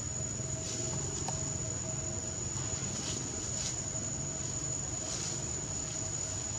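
Steady, high-pitched drone of insects, a single unbroken tone, over a low steady rumble, with a few brief faint rustles.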